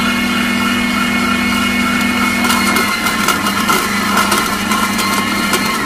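Electric meat grinder motor running loudly and steadily while candy sticks are fed into the auger, with crunching and cracking as they are crushed, denser in the second half.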